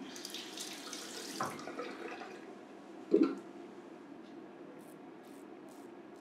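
Water running and splashing in a sink as a safety razor is rinsed, then a loud knock about three seconds in. Near the end, short scraping strokes of a double-edge safety razor over lathered neck stubble, about two a second.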